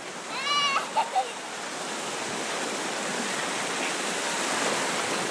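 Small surf waves washing in around the shallows, a steady rushing that swells toward the end. About half a second in there is one short high-pitched squeal, followed by two brief splashy knocks.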